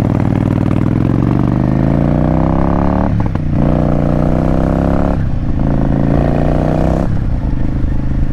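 Motorcycle engine accelerating up through the gears: the revs climb, drop briefly at each of three upshifts about three, five and seven seconds in, then hold steady at cruising speed.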